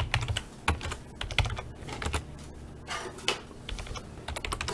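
Irregular light clicks and taps, scattered unevenly, like typing on a keyboard.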